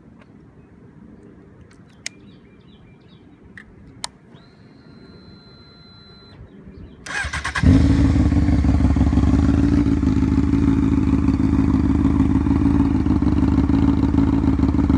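Honda CBR inline-four motorcycle engine being started: after a quiet stretch with two sharp clicks and a faint high whine, the starter cranks briefly about seven seconds in, the engine catches and then idles steadily and loudly.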